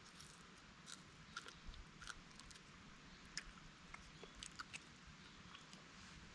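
Faint, irregular small clicks and crunches, a dozen or so scattered over a low steady hiss.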